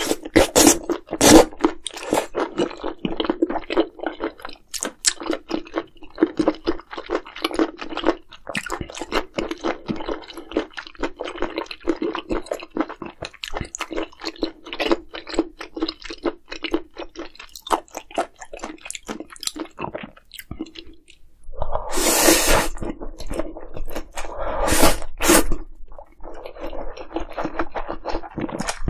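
A person chewing food close to the microphone: a steady run of wet smacking and crunching mouth sounds, with a short pause about a third of the way in and two louder, longer noisy stretches near the end.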